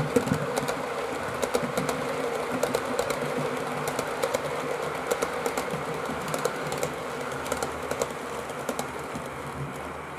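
Model train running past: a class 110 locomotive model hauling couchette, dining, sleeper and car-transporter wagons, its wheels clicking irregularly over rail joints and points over a steady running hum. The sound eases off slightly near the end as the train moves away.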